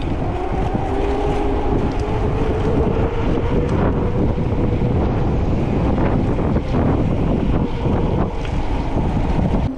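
Wind buffeting the microphone of a chest-mounted camera on a bicycle coasting downhill, with a thin steady whine underneath that slowly rises in pitch.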